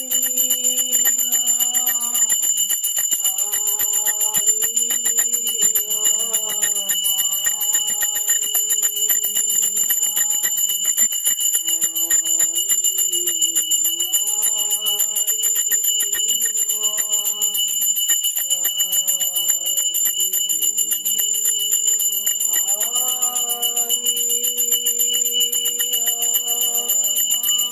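A puja hand bell (ghanti) rung continuously, a steady high ringing with quick fine strokes, under a voice chanting a prayer in long sliding notes.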